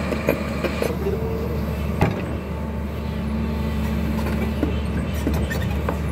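Hyundai crawler excavator's diesel engine running steadily as the machine turns around, with a few sharp clanks, the loudest about two seconds in.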